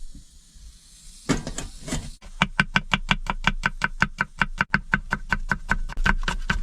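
A few separate knocks, then from about two seconds in a fast, even run of sharp strikes, about six a second, with a light ring: a utensil striking rhythmically during food preparation.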